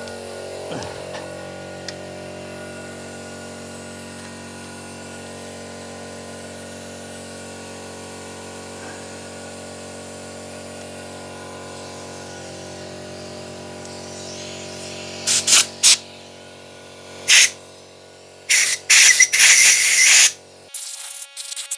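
Air compressor running with a steady hum. About fifteen seconds in come short blasts of compressed air from a blow gun on the hose, several in a row with the longest a couple of seconds long, as dust is blown out of the subwoofer's amplifier plate. The compressor's hum stops abruptly near the end while the air blasts go on.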